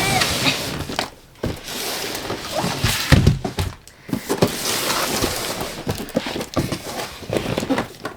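Cardboard box and packaging being handled by hand: rustling and scraping with scattered knocks, the loudest about three seconds in.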